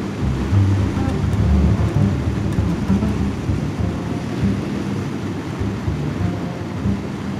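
Wind buffeting the microphone on a moving Harley-Davidson motorcycle, a steady low rumble, with the bike's engine running underneath.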